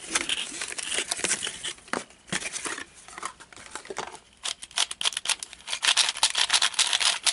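Plastic packaging around a new speed cube being crinkled and torn open: irregular crackles and clicks that get denser and louder about halfway through.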